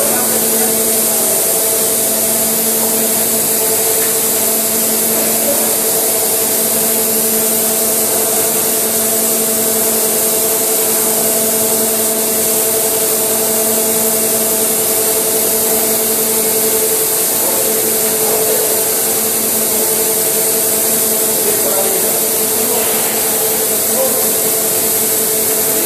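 Steady machinery noise inside a tunnel boring machine: a loud, even hiss with a steady hum of several notes. The lowest hum note drops out about 17 seconds in.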